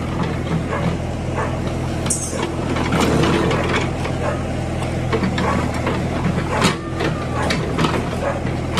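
JCB 3DX backhoe loader's Kirloskar diesel engine running steadily, with scraping and a few sharp knocks as the backhoe bucket digs into soil and stones.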